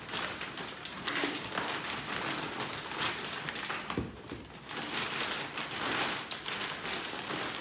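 Scissors snipping a thin plastic mailer bag, then the plastic crinkling and rustling irregularly as the bag is handled and pulled open, with a short sharp click about four seconds in as the scissors are set down.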